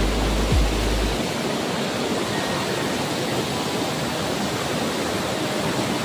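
Waterfall crashing into a rock pool: a steady, loud rushing roar. A low rumble with a couple of thumps sits under it in the first second or so.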